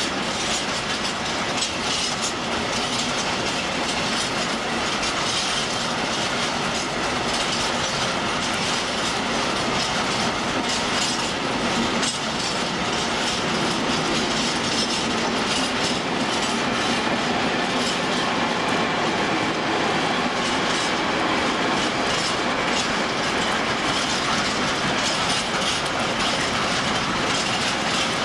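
Freight train of tank wagons rolling past: a steady noise of steel wheels on rail, with repeated clicks as the wheels cross rail joints.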